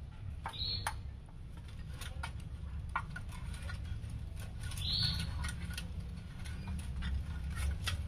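Kittens scuffling on a metal dustpan: scattered light taps and scratches of claws and paws on the metal, over a steady low rumble, with two brief high-pitched squeaks, one near the start and one about halfway through.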